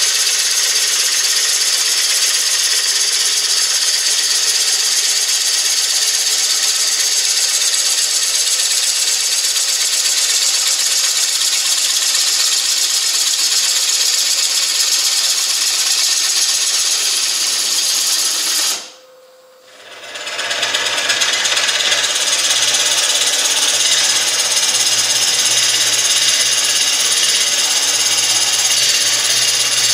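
A gouge cutting the outside of a spinning ash bowl blank on a wood lathe: a loud, steady hiss of shavings being sheared off. About two-thirds of the way through it breaks off for a second and resumes with the lathe's low motor hum beneath.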